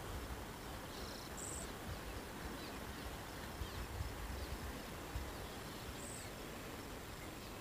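Steady outdoor background noise with a low, unsteady rumble of wind on the microphone. A few faint high bird chirps come through, a couple about a second in and another near six seconds.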